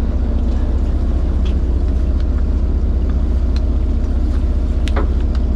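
Boat engine running steadily with a deep, even hum. A single sharp click comes near the end.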